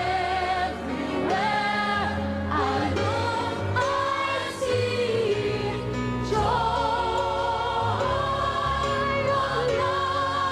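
Gospel choir singing, with a woman's lead voice on top, holding long notes with vibrato over steady low accompaniment.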